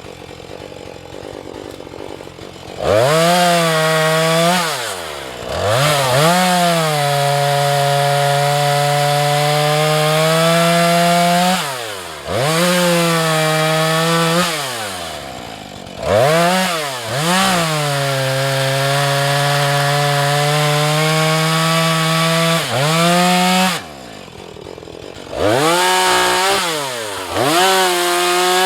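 Two-stroke chainsaw cutting wood: it idles, then is throttled up several times and held for long cuts, its pitch settling lower under load in the wood before dropping back to idle between them. A couple of short revs near the end.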